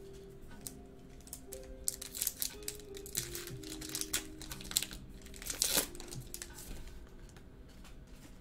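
Foil wrapper of a trading-card pack crinkling and tearing as it is ripped open by hand, in a quick string of crackles loudest a little before six seconds in. Soft background music plays underneath.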